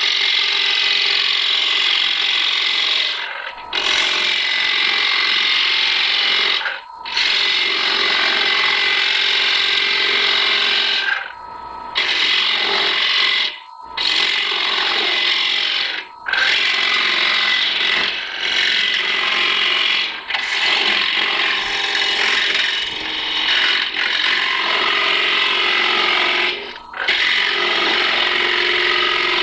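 Carbide-tipped parting tool cutting into wood spinning on a lathe, parting the piece off: a steady scraping hiss broken by about seven brief pauses as the tool eases off and goes back into the cut.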